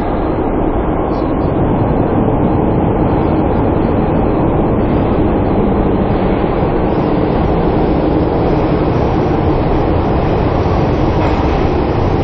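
Pyongyang Metro train running, a loud steady rumble of wheels and motors that swells slightly at the start and then holds level.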